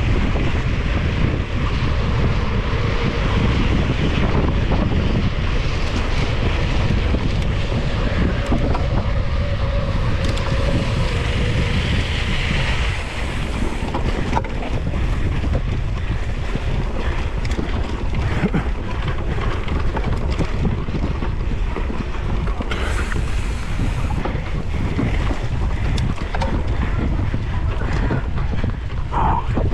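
Steady wind rushing over an action camera's microphone while a mountain bike is ridden hard over rough grass and dirt, with tyre noise and frequent knocks and rattles from the bike.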